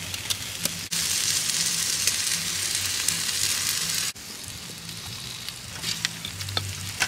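Steady sizzling hiss of food cooking on a hot grill. It jumps suddenly louder about a second in and drops back about three seconds later, over a faint low hum, with a few light clicks near the start and end.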